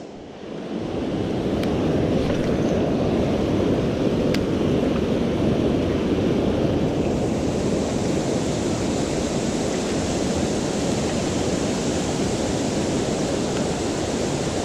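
Steady rushing of river water spilling over a low weir and churning below it; the rush swells up over the first second, then holds even.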